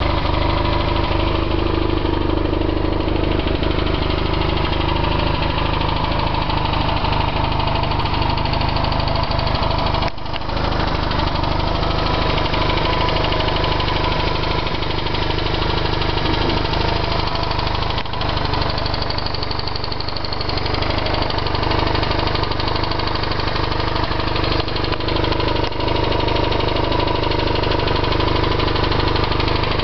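BMW R1100RT-P's boxer twin engine running steadily at idle, with a ticking noise that comes only from the right-side cylinder.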